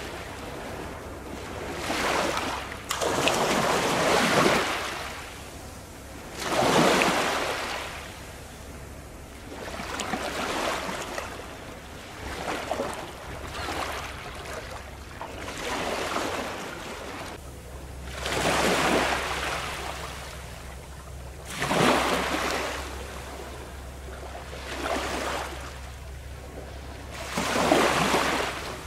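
Small sea waves breaking and washing up the shore, in surges every three to four seconds.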